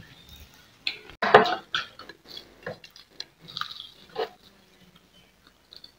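Clinks and knocks of ceramic plates and mugs being handled, a loud clatter about a second in and a few lighter knocks after.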